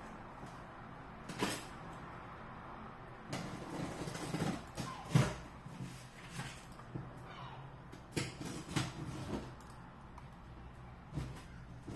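A large cardboard box being unpacked by hand: irregular scraping, rustling and knocks of cardboard and packed contents, with a sharp knock about five seconds in and another cluster around eight to nine seconds.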